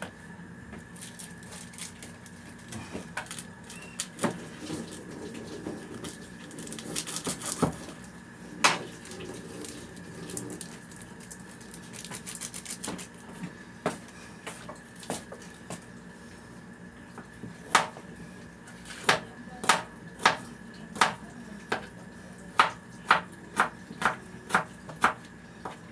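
Kitchen knife chopping on a plastic cutting board. Scattered knocks and clatters come first, then from about two-thirds of the way through a steady run of sharp taps, about two a second.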